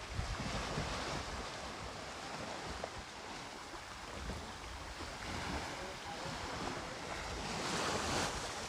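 Sea waves washing at the shore with wind on the microphone: a steady, noisy rush that swells briefly near the end.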